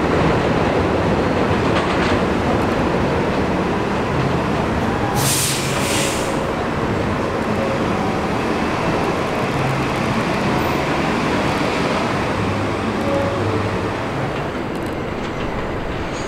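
Steel-wheeled New York City subway train on elevated track: a steady rumble and clatter of wheels on rail that slowly fades as the train moves away. About five seconds in there is a brief high hiss.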